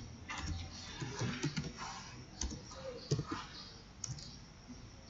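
Typing on a computer keyboard: irregular key clicks in short spurts.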